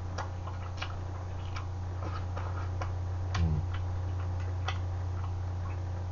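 Metal chopsticks clicking and scraping against the inside of a tin can as food is picked out: irregular light clicks, one or two a second, over a steady low hum.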